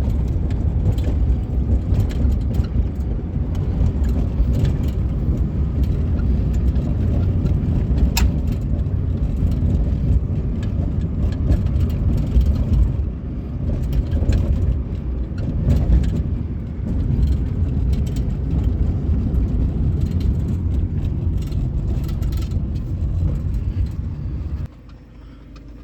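Road and engine noise heard inside the cabin of a 1998 Suzuki Baleno on the move, with scattered light clicks and knocks over a steady low rumble. The clicks are the unexplained rattle and creak in the interior that is being tracked down. The rumble drops away suddenly near the end.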